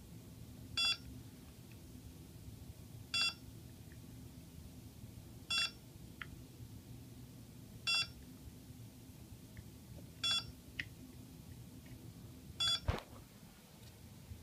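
Quadcopter electronics beeping: a short electronic beep repeating about every two and a half seconds, six times, over a faint steady hum. A single handling knock comes near the end.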